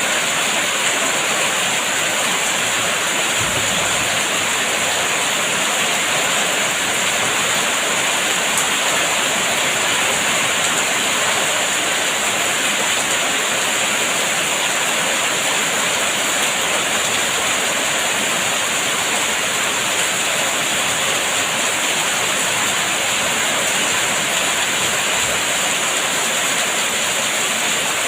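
Heavy rain falling as a steady, even hiss, with no single drops or other events standing out.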